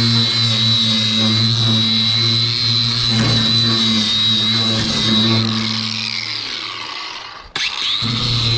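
Electric power tool motor running steadily with a high whine over a low hum. It eases off, cuts out briefly near the end, then spins back up to speed.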